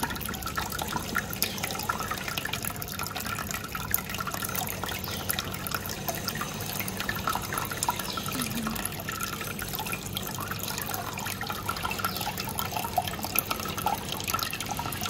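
Steady trickling and dripping of water in a turtle tank, with many small clicks and splashes.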